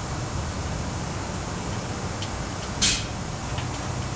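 Steady low hum of an oil-change service bay, with one short, sharp hiss almost three seconds in.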